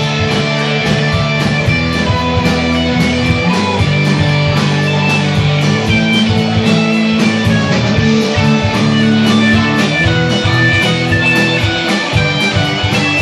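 Rock band playing live: strummed electric guitars over bass and drums, with a steady cymbal beat.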